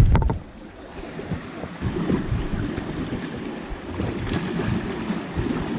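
Sea waves washing on a rocky shore with wind buffeting the microphone, after a short low thump at the start.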